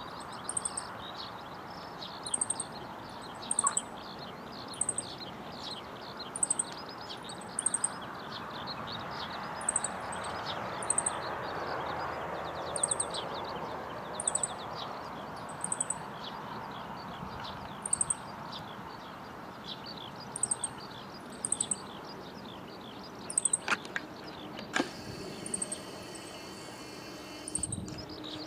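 Chestnut-eared bunting singing: short, very high chirps in twos and threes, repeated every second or two, over a dense background of fainter chirring and a steady outdoor hiss.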